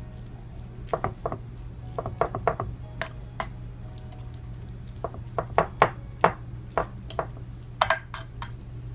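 A metal utensil clinking and scraping against a glass baking dish while mixing shredded chicken and vegetables, in irregular sharp taps that come thicker from about five seconds in.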